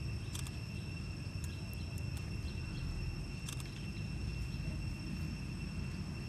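Steady high-pitched insect chorus of several unbroken tones over a low rumble, with a couple of faint clicks about half a second and three and a half seconds in.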